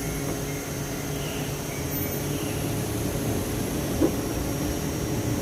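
Steady low machine hum with a single sharp click about four seconds in.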